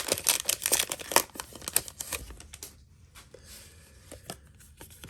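Foil Pokémon booster pack wrapper crinkling as it is torn open and handled, a dense crackle that thins out about halfway through to a few scattered soft clicks.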